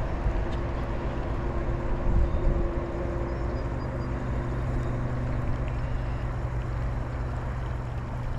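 Steady low whirring of a spinning reel being cranked to retrieve a topwater lure, over wind rumbling on the microphone.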